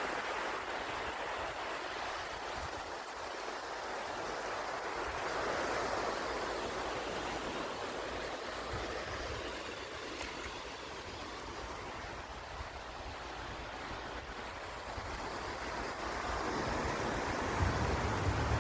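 Sea waves washing onto the shore, swelling and fading slowly, with wind rumbling on the microphone near the end.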